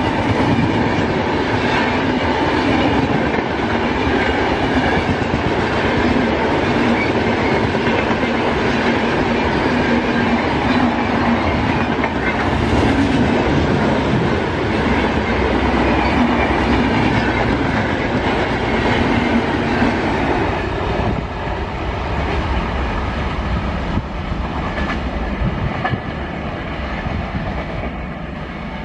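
Express passenger train's coaches rushing past at high speed close by, with loud, steady noise of wheels on the rails. The noise eases off about 21 seconds in.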